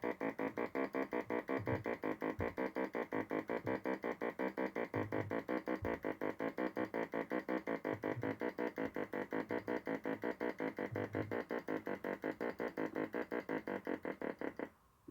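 Homemade synthesizer's oscillator driven by a shift-register step sequencer, looping a fast, even stream of short electronic notes with an occasional low bass note. It stops about a second before the end.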